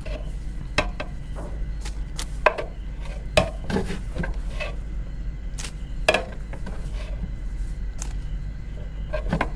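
A spoon scraping and tapping against a plastic blender jar while scooping ground spice powder into a small plastic bag. It makes irregular sharp clicks and knocks, a few louder taps among them, over a steady low hum.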